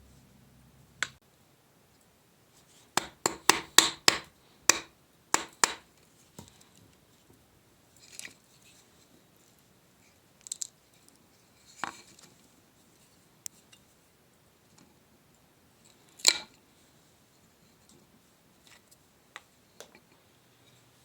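Hand-tool work on a wooden bucksaw part: a quick run of about ten sharp clicks and taps a few seconds in, then scattered single knocks, the loudest about two-thirds of the way through.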